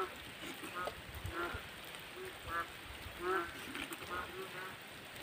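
Animal calls: short pitched calls repeated about twice a second at uneven spacing.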